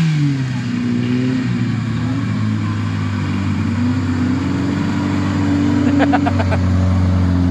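UAZ off-road vehicle's engine running as it drives across the field. Its pitch dips right at the start, climbs again over the next few seconds and then holds steady, growing slightly louder as it comes closer.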